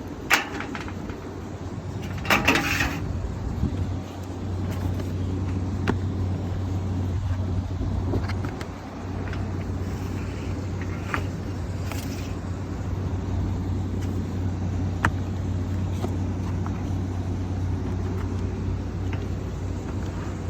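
Air filters being handled and slid into their tracks in an HVAC unit's filter section: scattered knocks and clicks, with a louder scraping rustle about two seconds in. A steady low machine hum runs underneath throughout.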